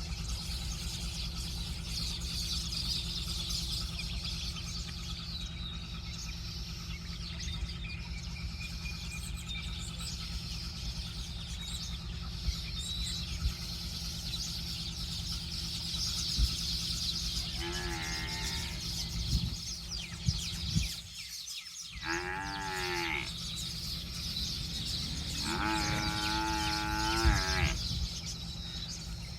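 A crowd of baby chicks chirping continuously in high peeps over a steady low hum. A larger farm animal calls out in drawn-out calls three times in the second half.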